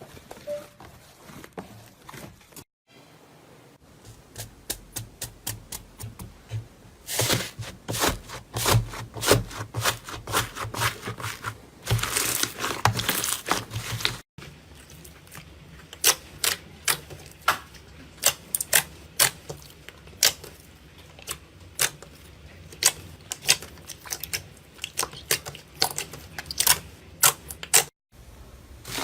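Slime being pressed and squeezed, giving crisp crackling clicks, sometimes in quick dense runs and sometimes a few tenths of a second apart, across several short clips cut together with brief silent breaks.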